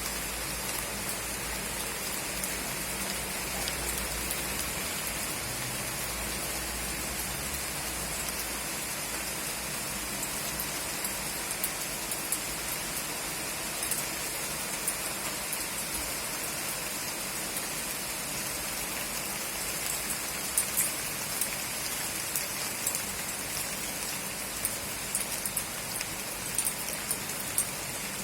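Steady heavy rain, with sharp drops ticking close by, more often in the second half.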